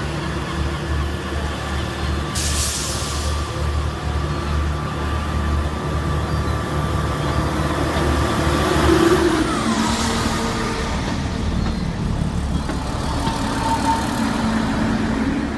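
Diesel train engine running steadily at the station, with a short blast of air hiss about two and a half seconds in and a brief falling whine near the middle.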